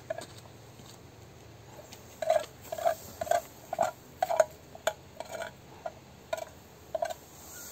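A metal utensil scraping and knocking in a small black pan in a run of short strokes, about two a second, starting after a brief lull.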